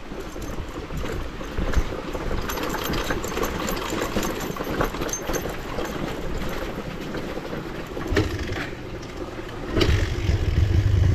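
Motorcycle engine running with rattling and clattering, getting louder about ten seconds in.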